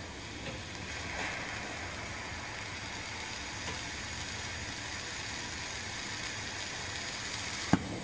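Glassblower's bench torch hissing steadily. A single sharp click sounds near the end.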